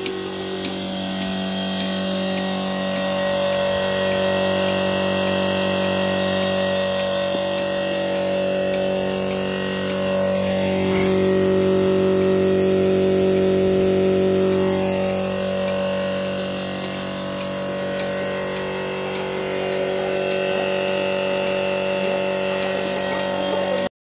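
Portable milking machine's electric motor and vacuum pump running steadily with a constant hum. It grows louder for a few seconds midway and stops abruptly near the end.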